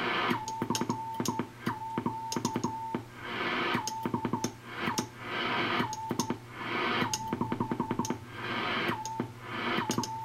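Morse code (CW) tone from a ham radio station, a steady mid-pitched beep keyed in short groups of dits and dahs with a click at each key stroke. About every second and a half it gives way to a swell of band hiss from the receiver.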